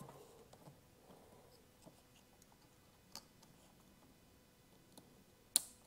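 Small plastic wire-harness connector being handled and plugged together: faint scattered ticks and taps, a sharper click about three seconds in, and a loud snap near the end as the two halves latch.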